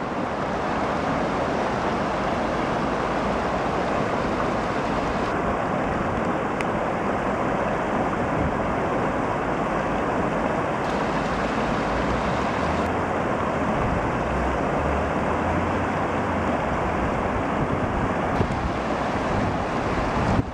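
Steady rushing 'zaa' of a river in flood after torrential rain: a fast, muddy torrent of floodwater pouring along and into the river it joins.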